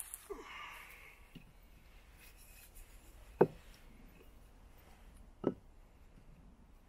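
A short scraping near the start, then two sharp knocks about two seconds apart; the first is the louder.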